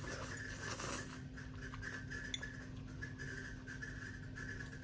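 A person slurping instant ramen noodles in about the first second, then eating more quietly, over a steady hum.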